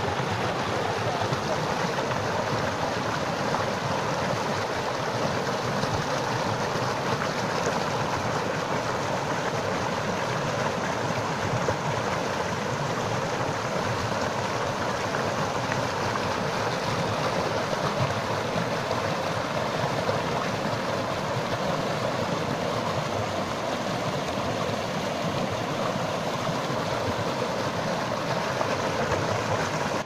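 Whitewater in a rocky stream rushing and churning over rocks: a steady, full rushing noise.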